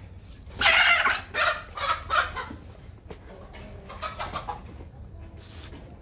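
A chicken clucking loudly: three calls in the first couple of seconds, then a few softer clucks about four seconds in.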